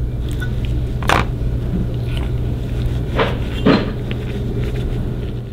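Gloved hands handling and rag-wiping a motorcycle fork cartridge part: about three short rubbing or knocking sounds over a steady low hum.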